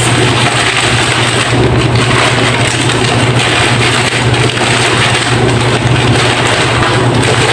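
Steady low hum under a loud, even rushing noise, unchanging throughout.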